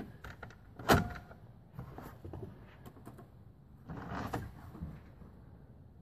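Hands handling a plastic-bodied electric typewriter and its case: one sharp knock about a second in, then quieter rubbing and small clicks, with a few more near the four-second mark. The typewriter's motor is not yet running.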